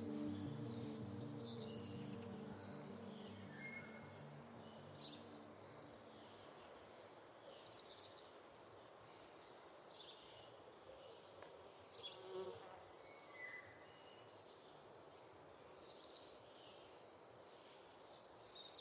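Quiet outdoor ambience: short high chirps recur every couple of seconds over a low hum, while soft background music fades out over the first few seconds.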